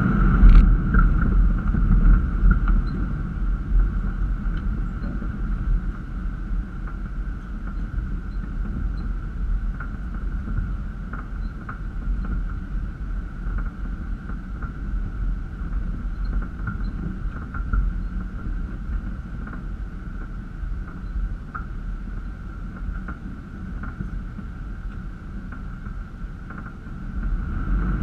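Toyota Land Cruiser FZJ80's straight-six engine and running gear driving along a rough dirt trail: a steady low rumble with scattered light knocks and clicks, louder in the first few seconds.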